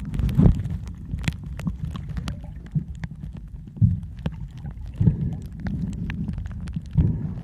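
Underwater sound at a coral reef: a low rumbling wash of moving water that swells about once a second, with scattered sharp clicks and crackles.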